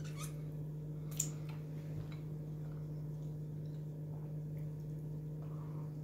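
Eating sounds: a person chewing a sandwich and licking her fingers, with small mouth clicks and one sharp smack about a second in, over a steady low hum.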